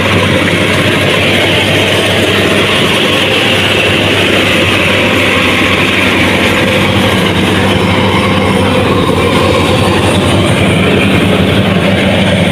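Rice combine harvester running steadily, a loud, even engine drone.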